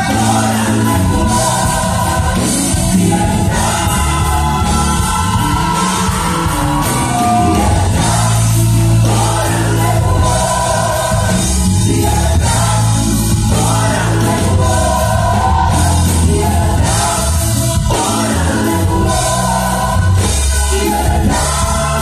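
A gospel choir singing a lively song, backed by a live band with drums and a strong bass line.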